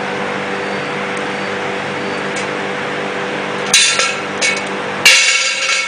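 Steady motor hum, then two sharp metallic clanks with a bright ringing about a second apart; the hum cuts off at the second clank.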